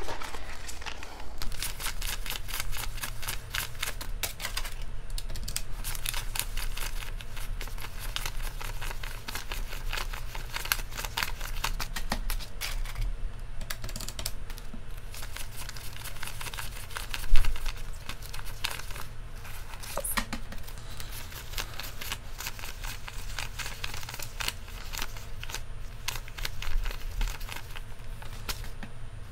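A stack of US paper banknotes being counted by hand and sped up: a rapid, continuous run of crisp paper flicks and rustles over a low steady hum. One louder thump comes about 17 seconds in.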